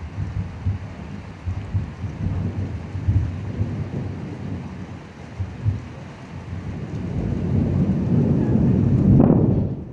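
Thunder rumbling over steady rain; the rumble swells about seven seconds in, peaks as the loudest part, and breaks off suddenly just before the end.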